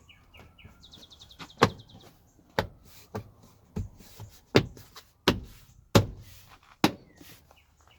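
Plastic door trim pieces and clips snapping into place on the door, a series of sharp clicks and knocks, about nine in all. A bird chirps a short trill about a second in.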